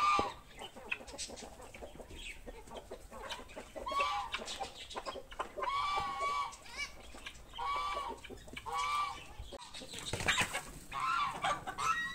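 Chickens clucking: a series of short, arched calls every second or two, with small clicks between them and a brief rush of noise about ten seconds in.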